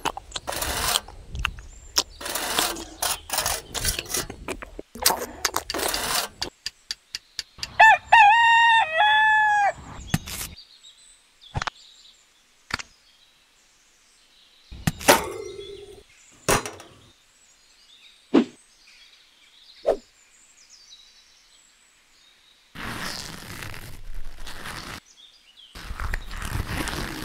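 A small trowel scraping and smoothing wet cement in quick repeated strokes, then a rooster crowing once, about eight seconds in, the loudest sound here. Scattered knocks and handling noises follow.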